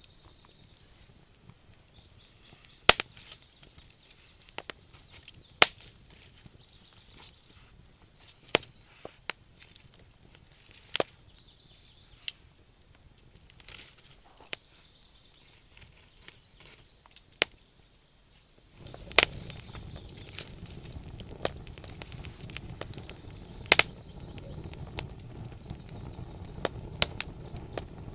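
Wood fire burning in a fireplace, crackling with sharp pops at irregular intervals and a faint high whistle now and then. About two-thirds of the way through, a steady low rush of flame noise comes in beneath the crackles.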